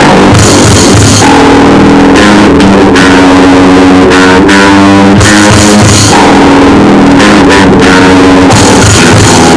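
Loud crust punk / noisecore music: distorted guitar chords that change every second or so over drum kit and bass, with cymbal washes coming and going, mixed right up to full level.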